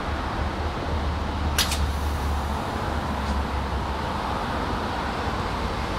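Subway train moving slowly along a platform: a steady low rumble and running noise, with a short sharp hiss about a second and a half in.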